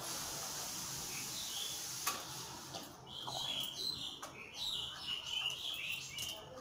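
Small birds chirping repeatedly from about three seconds in, over the wet handling of spice-coated fish pieces in a steel pot and a few sharp clinks.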